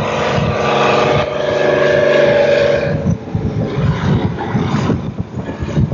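Diesel engines of road-building machinery. For about three seconds a road roller's engine runs with a steady hum. The sound then turns to a rougher, uneven low rumble that comes and goes, from a motor grader's engine.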